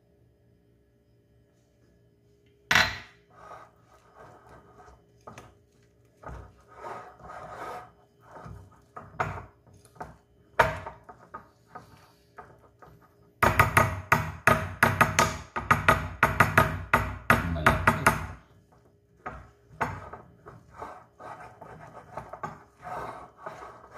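Wire whisk beating thick banana cake batter in a glass bowl as baking powder is mixed in. A sharp knock about three seconds in, then scattered scrapes and taps, then about five seconds of fast, even whisking past the middle, with the wires clattering against the glass, before it slows to intermittent strokes.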